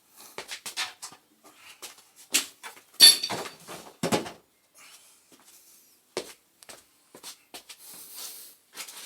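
Scattered metal clicks and knocks from parts being handled in a gas boiler's burner compartment, with one louder ringing metallic clank about three seconds in and another knock a second later.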